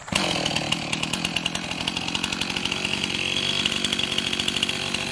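Chainsaw running steadily with a fast, even pulsing, cutting in suddenly right as the sound begins.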